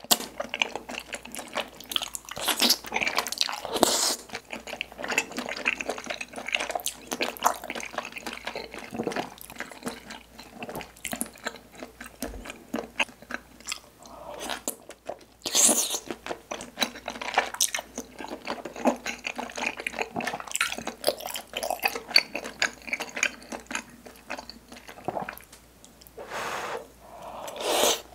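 Close-up eating sounds: wet, sticky chewing of chewy Chinese glass noodles and rice cakes in spicy tteokbokki sauce, with a few louder slurps about four seconds in, around the middle and near the end.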